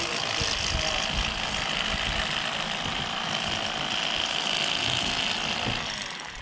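Electric fillet knife running steadily, its reciprocating blades buzzing as they saw along a largemouth bass; it winds down near the end.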